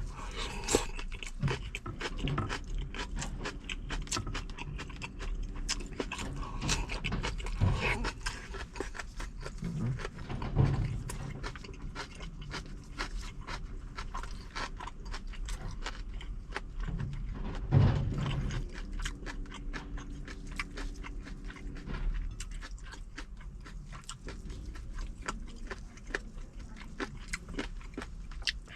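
Close-miked eating: a person chewing and crunching food, with many sharp mouth clicks and wet smacking sounds, over a steady low hum.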